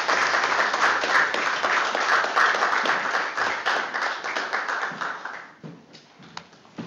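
Audience applauding, a dense patter of many hands that dies away about five and a half seconds in.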